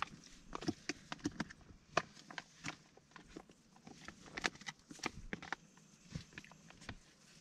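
A plastic food pouch being handled and opened: irregular crinkling and crackling of the stiff packaging, with small sharp clicks.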